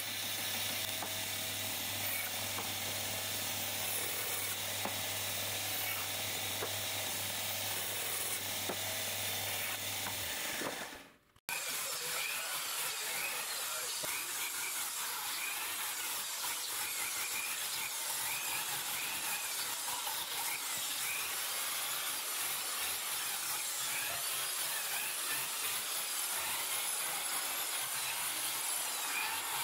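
A band saw runs with a steady motor hum while cutting a wooden cabriole leg blank, fading out about ten seconds in. After a short break, an electric drill spins a brush wheel against a carved wooden leg, its whine wavering as the brush is pressed into the carving.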